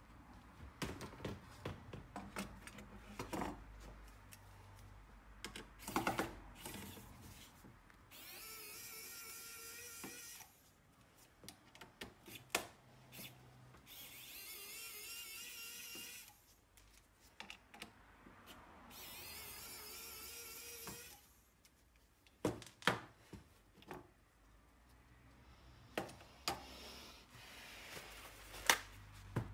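Cordless pen-style electric screwdriver running in three bursts of about two seconds each, backing out the heatsink screws on a laptop motherboard. Between the runs come sharp clicks and knocks of parts and tools being handled and set down.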